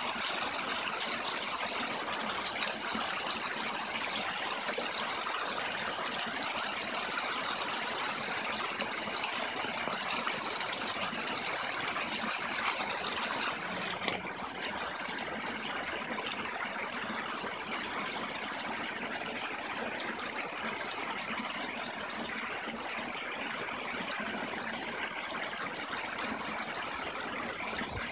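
Fast-flowing river rushing steadily over rocks as white water. A single brief knock comes about halfway through.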